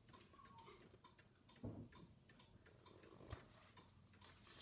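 Near silence: room tone with a few faint clicks and soft knocks, one about a second and a half in and a sharper one a little after three seconds.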